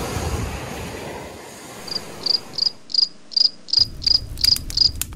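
Cricket chirping: a run of about nine short, high chirps, roughly three a second, starting about two seconds in. Before it comes a steady rushing noise.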